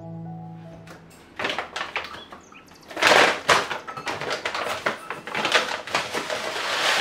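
Dry short-grain Kaima rice pouring and rattling into a plastic mixing bowl, with the plastic rice bag crinkling. It comes in irregular rushes, loudest about three seconds in.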